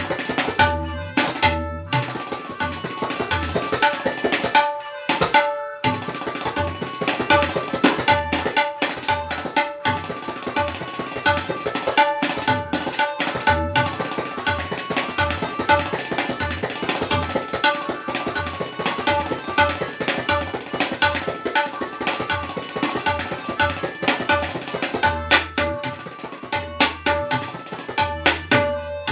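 Tabla playing solo: fast runs of ringing strokes on the right-hand drum, punctuated by deep bass strokes on the left-hand drum, with a brief break about five seconds in.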